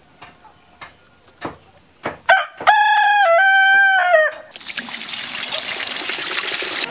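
A rooster crows once, a loud call of about two seconds that steps in pitch, after a few faint clicks. Then water rushes steadily over soaked soybeans in a basin until it cuts off at the end.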